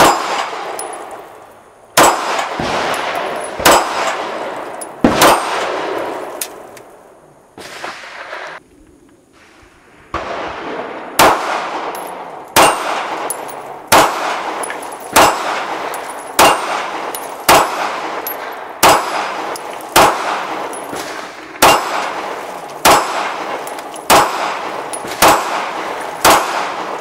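Sig Sauer P229 Elite Stainless 9mm pistol fired about twenty times, each shot followed by a ringing clang from steel plate targets. The shots come irregularly with a pause of a few seconds near the middle, then at a steady pace of roughly one a second.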